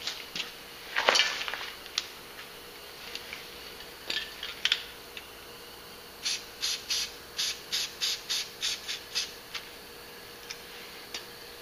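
Spray paint can being handled with a few clicks and knocks, then shaken in a quick rhythm, its mixing ball rattling about ten times over three seconds.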